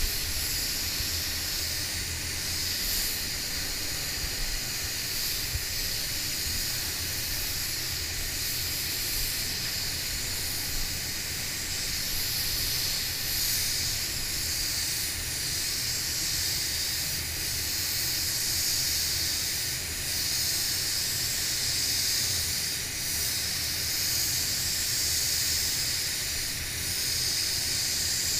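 Gravity-feed paint spray gun hissing as compressed air atomises paint onto a car bonnet, a steady hiss that swells and eases slightly every couple of seconds. A low hum of the spray booth's air system runs underneath.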